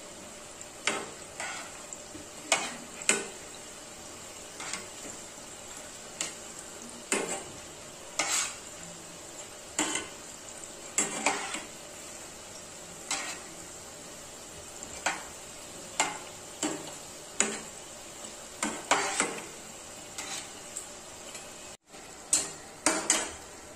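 Semolina litti balls deep-frying in hot oil with a steady sizzle, being browned further, while a slotted metal spatula knocks and scrapes against the pan about once a second as they are turned.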